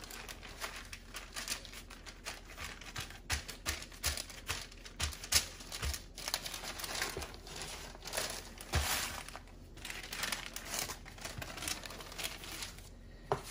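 Parchment paper crinkling and rustling as it is folded over the dough and pressed down by hand, with a few soft knocks on the counter.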